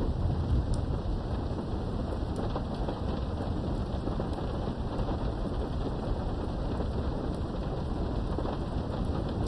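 Steady heavy rain with a low thunder rumble dying away over the first second or so.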